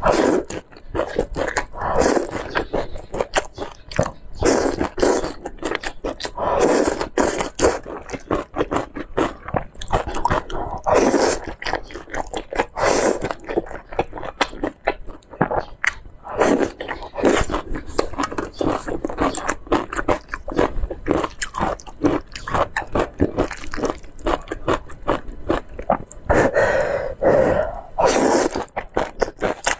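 Slurping and chewing of thick stir-fried noodles: a dense, irregular run of wet smacking mouth sounds with louder slurps every second or two.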